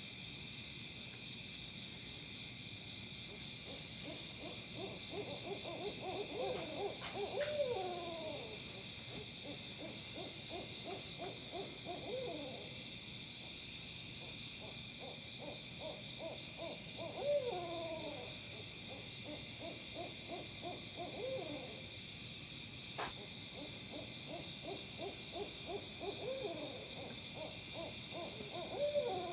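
Barred owls caterwauling: three bouts of rapid, monkey-like cackling hoots that build up and each end in loud, drawn-out, downward-slurred calls, about 7, 17 and 29 seconds in. A steady high insect trill runs underneath.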